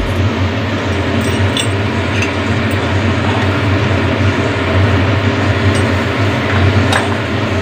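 A metal spoon clinking and scraping against a steel bowl a few times as raw pork and potato pieces are pushed out of it into a pressure cooker, over a steady hum and hiss.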